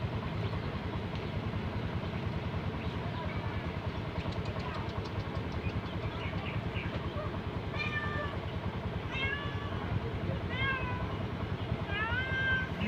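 Stray cat meowing repeatedly, the calls getting louder and clearer in the second half, over a steady low rumble of traffic.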